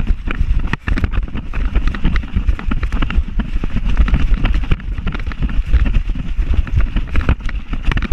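Wind buffeting and rapid, irregular knocks from a camera strapped to a running dog's back, jolted by its strides.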